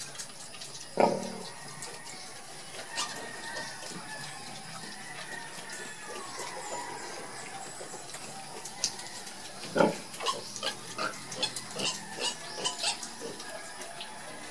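A sow and her piglets at nursing. There is a sow grunt about a second in and another near ten seconds, faint piglet squeals in between, and a quick series of short sharp squeaks and snuffles over the last few seconds.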